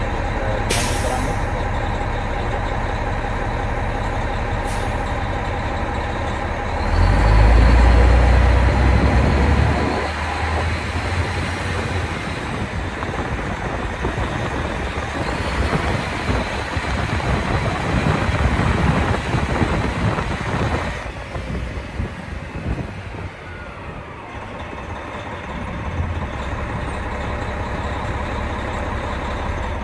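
Oshkosh truck's diesel engine heard from inside the cab, running steadily, then revving up strongly about seven seconds in as the truck pulls away and drives at low speed; the engine eases off around twenty seconds in. Two short hisses sound near the start.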